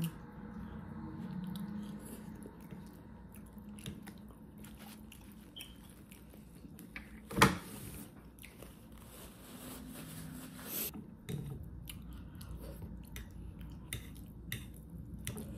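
A person chewing food, with small clicks from the mouth and fork. About seven seconds in comes one sharp knock, then a paper napkin rustles for about three seconds.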